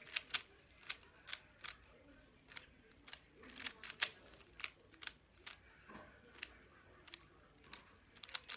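Plastic speed cube being turned by hand during a solve: sharp, irregular clicks as its layers are twisted, a few a second, some in quick pairs.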